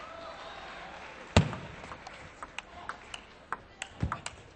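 Table tennis rally: the ball clicking sharply off bats and table at about three to four hits a second, after a single loud thump about a second in and with another low thud near the end.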